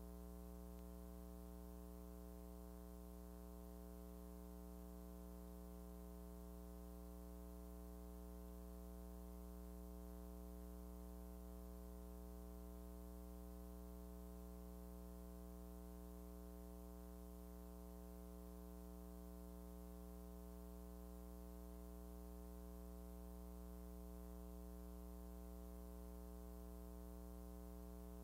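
Near silence: a steady low electrical hum with its overtones under a faint hiss, unchanging throughout, with no soundtrack sound.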